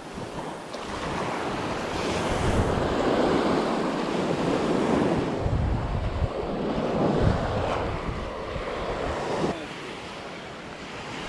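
Gulf surf breaking and washing up the beach, with wind buffeting the microphone. The sound swells about a second in, has a few heavy low gusts in the middle, and eases off near the end.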